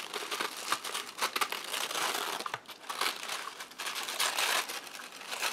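Tissue paper packing crinkling and rustling as hands pull it back inside a cardboard box, in quick irregular crackles.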